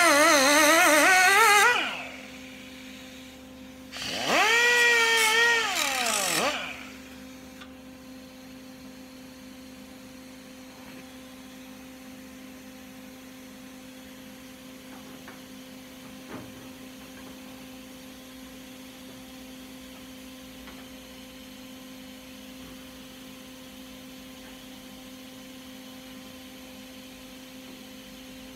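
Small high-speed handheld power tool running with a wavering whine that cuts off about 2 seconds in, then a second short run that spins up, runs briefly and winds down by about 6.5 seconds. After that only a faint steady hum, with one light click near the middle.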